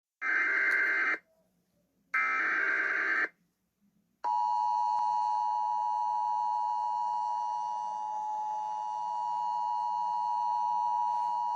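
Emergency Alert System signal: two roughly one-second bursts of warbling SAME digital header data tones about two seconds apart. About four seconds in, the steady two-tone EAS attention signal begins, a harsh dual tone that holds unbroken, announcing a severe thunderstorm warning.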